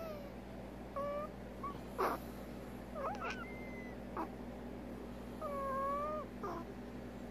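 A prairie dog's abnormal, laboured breathing: a string of short squeaky whistles, some bending up and down, between brief noisy breaths, with one longer whistle near the end. This is the breathing noise of odontoma, the overgrown incisor roots that block the nasal passages, and it is not normal.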